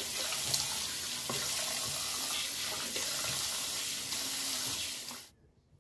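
Bathroom sink faucet running steadily while cleanser is rinsed off a face under it. The tap is shut off about five seconds in and the sound stops suddenly.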